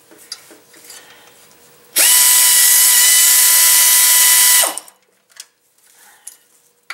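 Pneumatic air ratchet spinning out a transmission oil-pan bolt in one run of about two and a half seconds, starting about two seconds in: a steady high whir over loud hiss that spins up quickly and winds down at the end. Faint metal clicks come before it as the socket is fitted onto the bolt.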